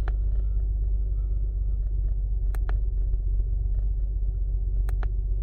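2005 Acura TL's V6 engine idling with a steady low rumble, an idle at which the owner reports a misfire and a fluctuating RPM. A few sharp clicks come over it, two close together about two and a half seconds in and two more near the end.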